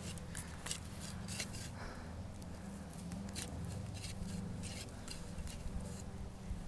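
Hand saw cutting through the trunk of a small Christmas tree at its base: short scratchy strokes at an uneven pace, two or three a second.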